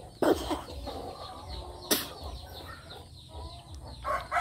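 Chickens clucking, with a sharp click about two seconds in. Near the end a rooster starts to crow loudly.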